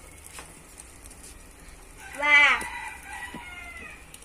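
A rooster crowing once, starting about two seconds in. The call rises and falls, then trails off in a long fading final note.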